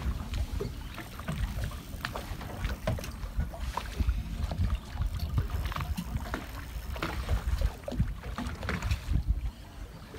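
Wind buffeting the microphone on an open fishing boat, a gusty low rumble, with choppy waves slapping against the hull in irregular knocks and splashes.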